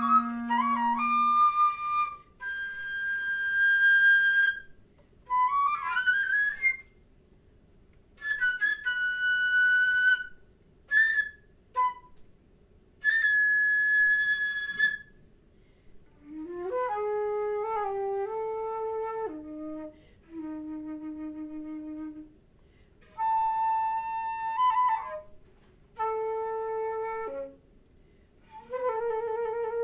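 Flute playing short phrases separated by brief pauses, with high held notes and quick upward slides in the first half, then moving into a lower register with runs of shorter notes. A clarinet holds a low note under the flute for the first second or so.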